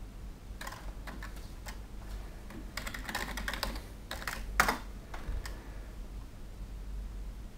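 Typing on a computer keyboard: a quick run of keystrokes entering a login password, with one louder key press about four and a half seconds in.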